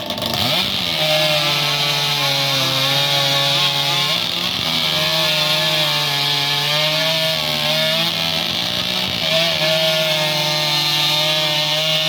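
Two chainsaws started from cold and run at full throttle while cutting discs off a log; the engines rise to speed about half a second in, then run loud and steady with small changes in pitch as the chains bite through each cut.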